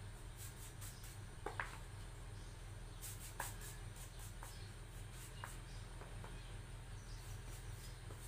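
Faint scattered clicks and short chirps over a steady low hum.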